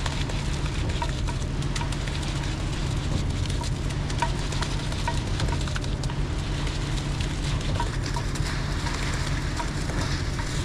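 The 7.3 L Ford Godzilla gas V8 of a Reed B50G concrete pump running steadily at raised throttle while pumping concrete, with scattered light ticks throughout.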